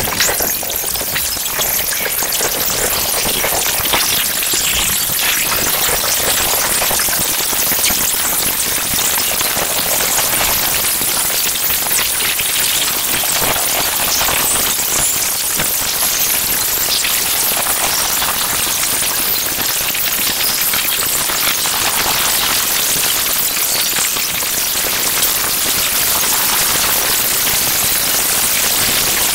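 Acousmatic electroacoustic composition: a dense, steady wash of crackling, hissing noise, brightest in the high end, like heavy rain or static. Faint, softer swells rise and fall underneath it now and then.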